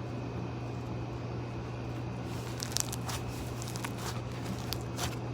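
Crackling, crinkly squeezing of a cut-open squishy toy's slimy filling, beginning about halfway through as scattered short clicks. A steady low hum runs underneath.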